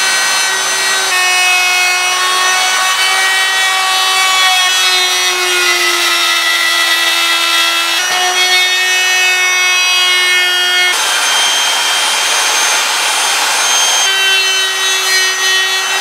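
Electric wood router running at speed with a high, steady whine as its bit is pushed freehand along a wooden axe handle, cutting wood off it. The whine sags in pitch as the bit bites in. For a few seconds past the middle it gives way to a rough cutting noise.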